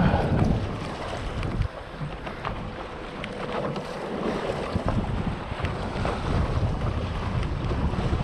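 Wind gusting on the microphone, a low rumble over the wash of sea water.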